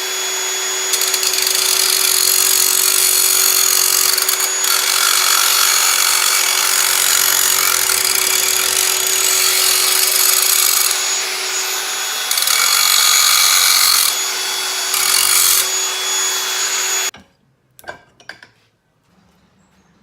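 Handheld power grinder with a steady motor whine, grinding down the lip of a boat swivel-seat pedestal base; the scraping swells and eases as the grinder is pressed to the part. It cuts off about seventeen seconds in, followed by a few light knocks.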